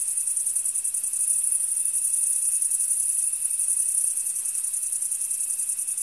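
Crickets chirping in a field as a dense chorus: a high-pitched, rapidly pulsing trill that never lets up, with a fainter steady tone beneath it.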